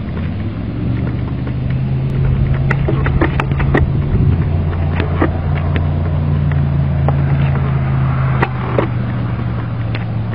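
Steady low hum of an idling vehicle engine, with a few sharp clicks scattered through.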